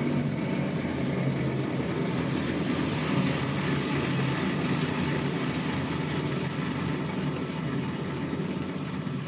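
Tractor engine running steadily at working speed, a continuous low drone, with a bush hog rotary cutter in use.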